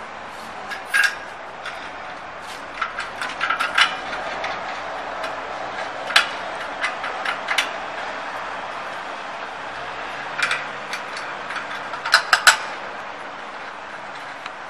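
Scattered sharp metal clicks and knocks from bolts and steel frame parts being handled and fitted together, in small clusters, with the loudest ones near the end.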